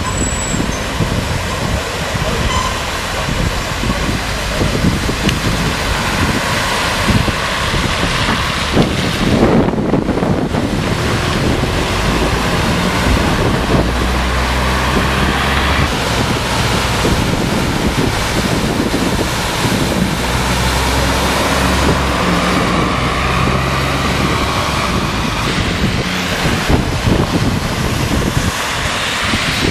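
Cars and a city bus driving through deep floodwater on a street, their tyres throwing up water in a continuous rushing splash. The bus's engine runs close by from about twelve seconds in, adding a steady low hum for several seconds.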